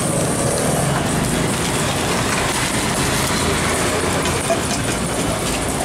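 Steady roadside traffic noise, with faint clinks of steel bowls and plates at the counter.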